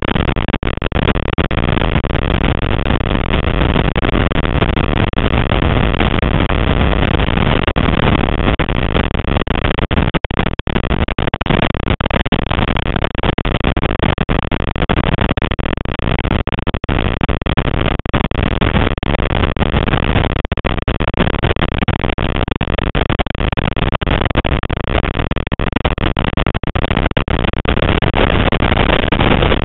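Classic Mini Cooper's BMC A-series four-cylinder engine running hard at racing speed, heard inside the cabin: a loud, steady mix of engine, gearbox and road noise with no clear pitch and a brief dip about ten seconds in.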